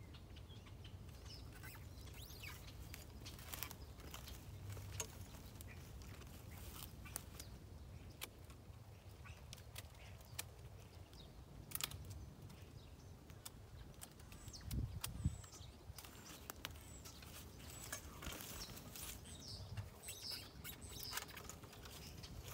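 Scattered sharp clicks and snaps of pruning loppers and twigs as branches of a bare pluot tree are handled and cut, with a louder low thump and crack about fifteen seconds in. Birds chirp faintly in the background.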